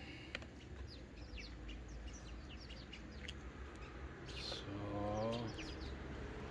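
Birds chirping, many short quick chirps over a steady low rumble. About five seconds in, a brief low droning tone with several overtones is the loudest sound.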